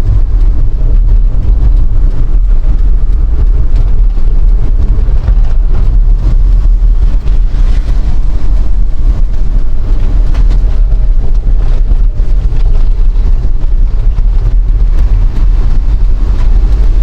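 Steady, loud low rumble of a vehicle travelling on the road, with wind buffeting the microphone.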